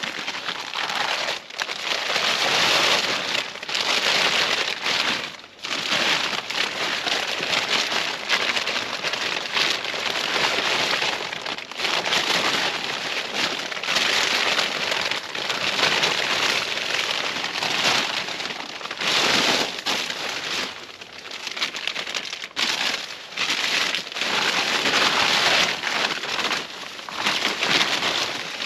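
Camping gear in fabric bags rustling and crinkling as it is handled and pulled out, in uneven surges with short pauses.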